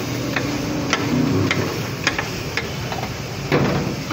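Metal griddle spatula chopping chicken pieces on a flat steel griddle plate: sharp metal-on-metal clinks about twice a second.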